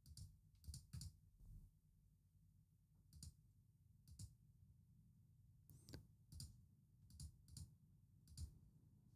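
Faint computer mouse clicks, about a dozen at irregular intervals, some in quick pairs, over a low faint hum.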